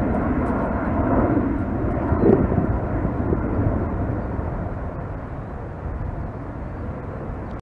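Jet engine noise from a four-engine widebody jetliner climbing out after takeoff: a steady, deep rumble that slowly fades as the aircraft moves away.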